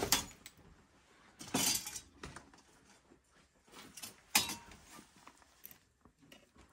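Hands rummaging through a pile of debris of boards, broken ceiling tiles and glass: scattered knocks, scrapes and clinks as pieces shift. The sharpest clink comes about four and a half seconds in.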